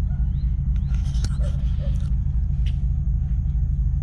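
Steady low outdoor rumble, with a few faint short bird chirps and a single sharp click about a second in.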